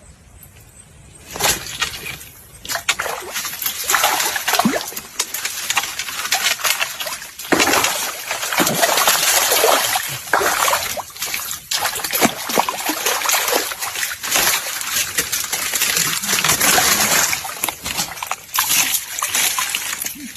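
Hooked snakehead fish thrashing and splashing hard at the water's surface as it is reeled in, starting about a second in and going on in irregular bursts.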